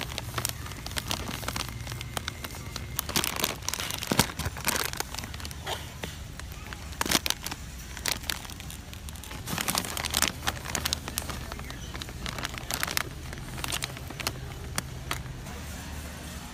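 Plastic snack-bag packaging being handled, crinkling and crackling in irregular bursts, over a steady low hum and faint voices.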